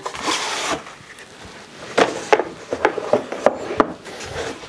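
A flat black case handled and opened on a wooden workbench. A short rubbing slide comes first, then about a second later several sharp clicks and light knocks as its parts are set down on the wood.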